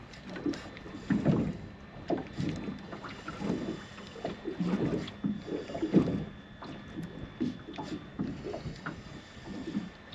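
Water lapping and splashing against the hull of a small boat, in soft irregular slaps with no steady rhythm.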